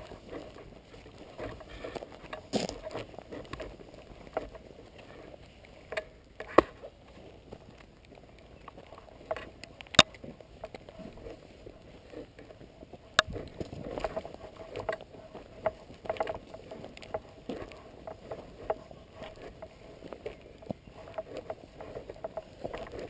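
Airsoft guns firing single sharp cracks, scattered seconds apart, with the loudest about 6.5, 10 and 13 seconds in. Under them run continuous rustling and scuffing, with smaller knocks from players' gear and movement.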